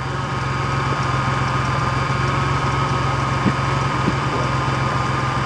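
V6 car engine idling steadily, with an even, fast low pulse.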